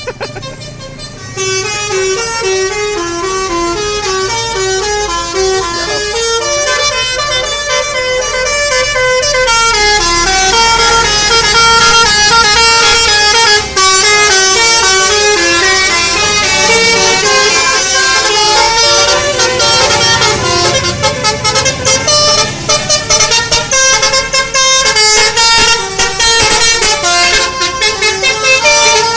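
Telolet basuri multi-tone musical bus horns playing a quick tune of stepping notes, starting about a second in and getting louder around ten seconds in, over the low rumble of bus engines.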